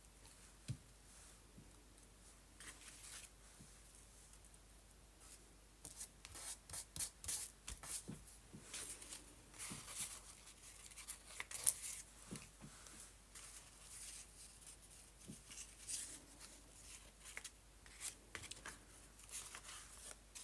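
Paper collage pieces being handled close by on a journal page: lifted, moved and pressed down, giving irregular quick rustles and small clicks. Mostly quiet with a few faint clicks for the first six seconds, then busy rustling to the end.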